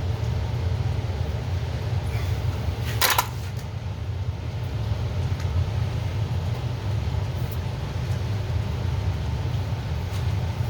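Tubing cutter being worked on a copper water pipe, giving one sharp metallic click about three seconds in and a few faint clicks later. A steady low hum runs underneath. The cutter wheel is only scratching the pipe's surface, not cutting into it.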